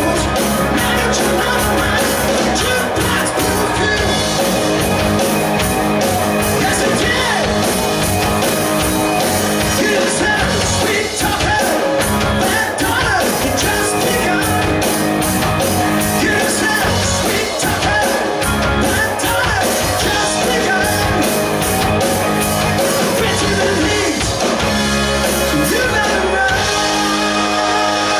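Live rock band playing at full volume: a male singer's voice over electric guitars, drum kit and keyboard.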